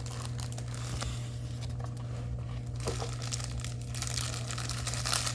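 Plastic packaging of a diamond painting kit crinkling and rustling as it is handled, busier near the end, over a steady low hum.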